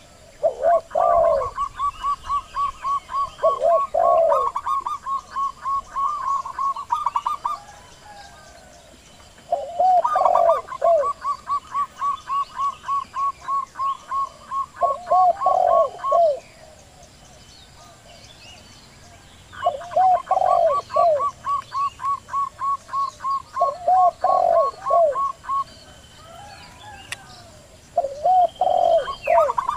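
Zebra doves and spotted doves cooing: low, falling coos in groups of two or three, alternating with long runs of rapid, short, higher notes that each last several seconds and come round three times, with a fourth starting near the end.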